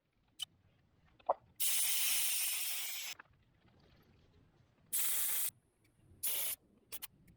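Air hissing out of a 4x4's tyre valve as the tyre is let down for the dirt track, in three bursts: a long one of about a second and a half, then two short ones near the end. Small clicks come before them.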